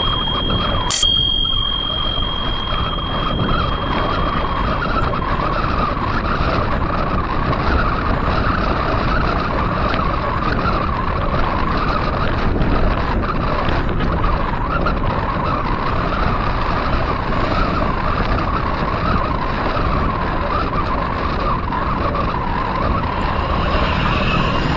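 A bicycle bell dings sharply about a second in and rings out for a couple of seconds, over steady wind and tyre rolling noise from a gravel bike riding on asphalt.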